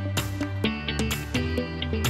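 Background music: a light instrumental track with plucked guitar over a steady beat.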